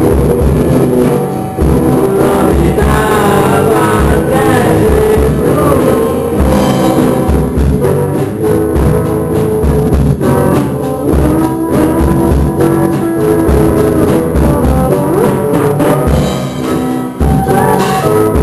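A band playing a song live, with a drum kit keeping a steady beat under guitar and a singing voice.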